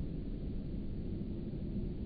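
Steady low rumbling noise with no distinct sounds in it.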